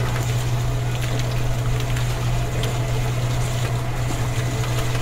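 Small motor of a miniature DIY concrete mixer running with a steady hum, wet cement slurry churning in its tin-can drum.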